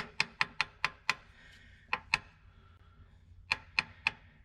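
Sharp clicks in short, uneven runs: a quick string of about five in the first second, a pair about two seconds in, and three more close together near the end.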